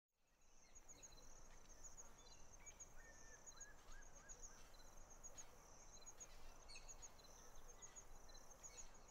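Faint countryside ambience: insects chirping steadily in a high, rapid pulsing trill, with a few short bird calls around three to four seconds in.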